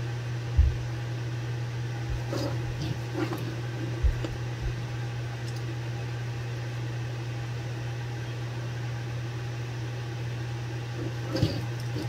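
Steady low electrical hum, like a fan or mains-powered equipment, with a few faint taps and clicks in the first few seconds.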